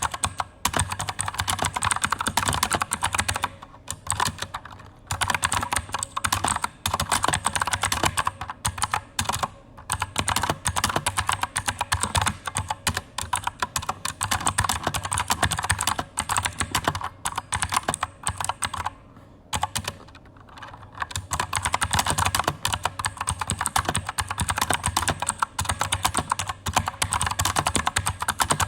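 Fast, continuous typing on an Aukey KM-G9 mechanical keyboard with Outemu Blue clicky switches, each keystroke giving a sharp click. It breaks off a few times, briefly about two-thirds of the way in.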